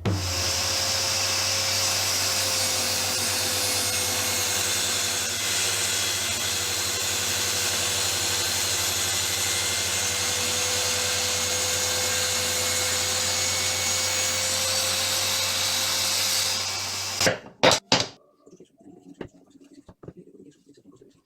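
An electric power tool running steadily for about seventeen seconds, then stopping, followed by two sharp knocks and faint handling sounds.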